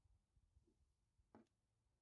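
Near silence: faint room tone with one soft click a little past halfway through.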